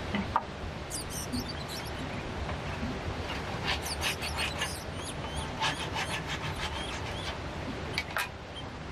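Short scratches and taps of a handsaw and wooden planks being worked by hand, in quick clusters, with two sharp knocks near the end, over a steady rush of water.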